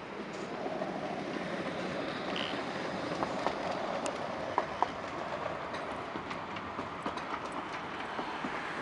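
Electric tram running past on its rails, a steady rolling noise with a few sharp wheel clicks near the middle.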